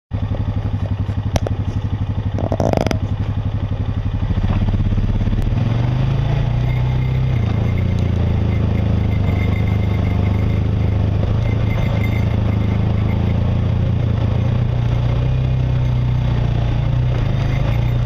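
Off-road vehicle engine running steadily as it drives down a rough dirt trail, its note stepping up slightly about four and a half seconds in. A sharp click comes about a second and a half in, and a brief clatter about a second later.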